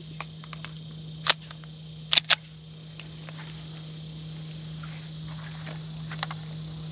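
Sharp metallic clicks from a Springfield Armory 1911 DS Prodigy pistol being worked by hand to clear a round that would not fire. There is one click, a quick pair about a second later, and a fainter one near the end.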